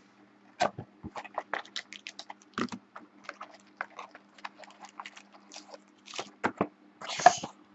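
Hands opening a cardboard Panini Preferred trading-card box and handling what is inside: a string of small clicks and taps from the lid and packaging, with a brief rustle near the end.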